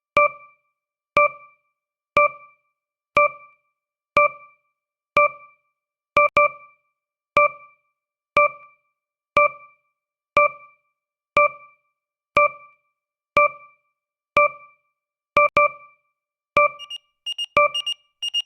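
Countdown timer's tick sound effect: a short electronic keyboard-like note struck once a second and dying away quickly. Near the end a fast run of higher-pitched alarm beeps joins in, signalling the last seconds of the countdown.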